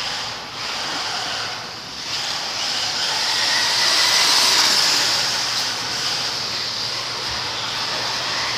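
Radio-controlled car driving on a concrete floor: a steady high whir of its motor and tyres that grows louder about halfway through as it comes close, then eases off.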